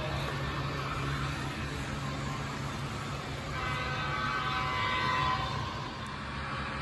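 HO scale model diesel locomotive's onboard sound playing a steady low engine rumble. From about halfway through to near the end, a sustained multi-note horn sounds over it.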